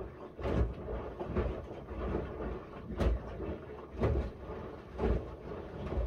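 Miele W1 front-loading washing machine drum turning a load of wet laundry, with a soft thud about once a second as the laundry drops.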